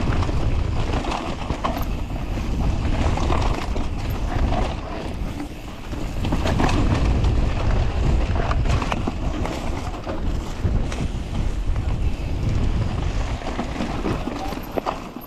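Wind buffeting a camera microphone during a mountain-bike descent, with scattered clicks and knocks from the bike rattling over rough trail. It eases briefly about five and a half seconds in.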